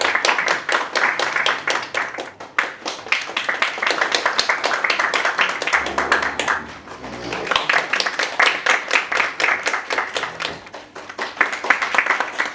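Audience applause: many hands clapping in a dense, irregular patter that eases off about six seconds in and then builds back up.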